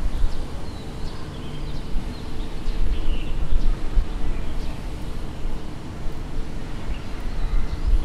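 Outdoor street ambience: a low, uneven rumble, like distant traffic or wind on the microphone, with small birds chirping now and then.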